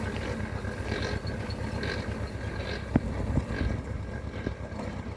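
Ursus C-335 tractor's two-cylinder diesel engine running steadily as it pulls a Pöttinger rotary rake through clover, with one sharp click about three seconds in.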